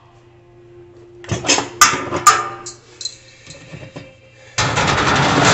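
Hard parts of a gas grill being handled and knocked into place: two sharp knocks close together, with lighter clatter after them. A loud, steady noise starts near the end.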